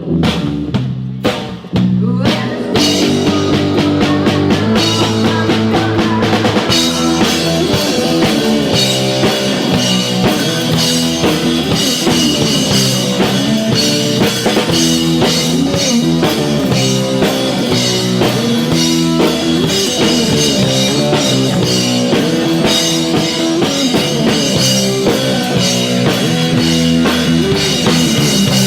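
Rock band playing an instrumental passage without vocals, drum kit to the fore. It starts with sparse hits, and the full band comes in a little under three seconds in and plays on.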